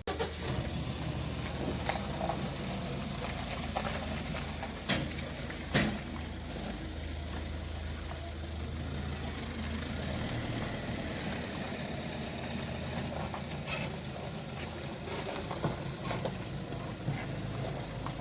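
A steady low engine hum, with a few sharp knocks, the loudest about six seconds in.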